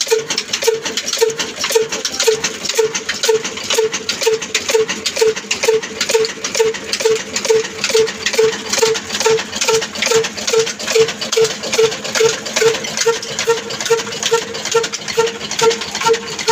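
Old black desi horizontal diesel engine running steadily, its heavy flywheel turning. It gives a regular firing beat about twice a second over a fast, continuous metallic clatter.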